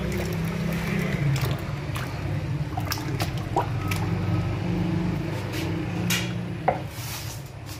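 Metal ladle scooping gulab jamuns out of sugar syrup: the syrup sloshing and dripping, with scattered clicks and one sharp click near the end, over a steady low hum.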